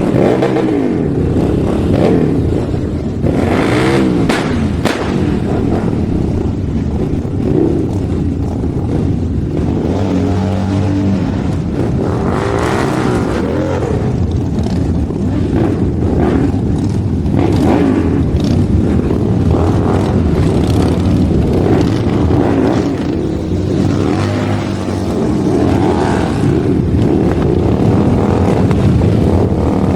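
Motorcycle engine running, revved up and down several times.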